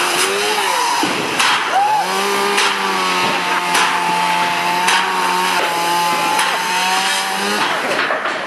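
A small motor or power tool revs up about two seconds in, runs at a steady pitch for about five seconds, then stops. Sheets of corrugated metal fencing clatter and bang at intervals throughout.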